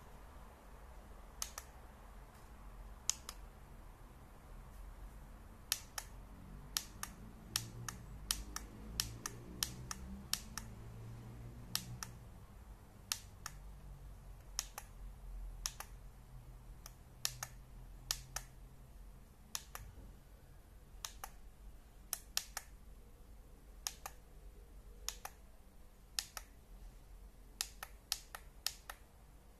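Plastic buttons on a digital night vision monocular clicking as its settings menu is scrolled through: dozens of sharp single clicks at irregular intervals, some in quick runs of several presses.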